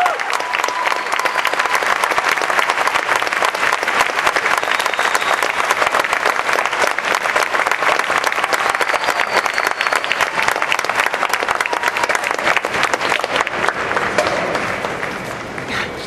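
Large arena crowd applauding steadily, with the clapping thinning and dying down over the last two seconds.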